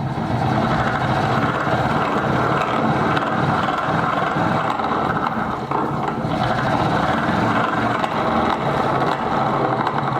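Restored hand-cranked bench grinder being turned, its gears and wheel whirring steadily with a low, uneven pulsing.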